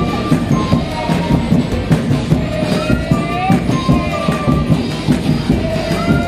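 Loud festival dance music with a dense, steady beat and short repeating high melody notes, some gliding upward.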